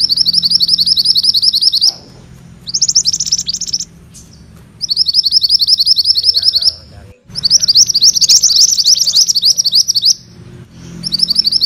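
Mantenan kuning (a minivet) singing its rolling song: rapid strings of high, sharp chirps, about ten a second, in five bouts of one to three seconds separated by short pauses.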